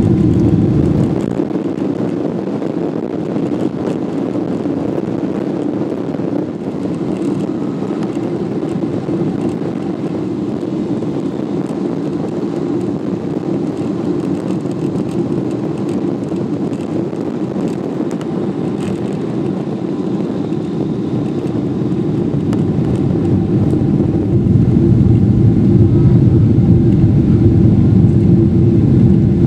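Boeing 777-200ER's Rolls-Royce Trent engines at takeoff thrust, heard from inside the cabin by the wing: a loud, steady drone with rushing air. A deep rumble fades about a second in, and the noise swells louder again from about twenty seconds in.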